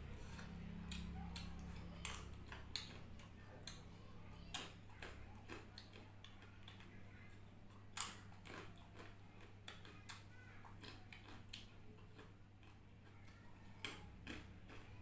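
Eating sounds: scattered, irregular clicks and taps of a utensil and chewing, the loudest about eight seconds in, over a steady low hum.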